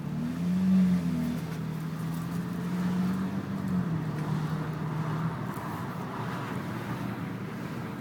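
Low, wavering tone from the front left wheel of a BMW 335i, a noise the owner calls screeching and cannot identify, over steady road and tyre noise. It holds for about five seconds, dips in pitch midway and then dies away.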